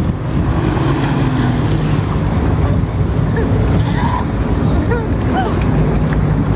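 Personal watercraft engine running steadily to drive a flyboard's water jet, with rushing water and wind on the microphone.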